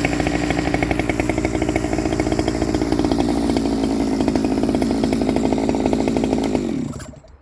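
Stihl 009 top-handle two-stroke chainsaw running at a steady speed, then dying away and stopping near the end. It is running way too rich, which the owner puts down to the carburettor.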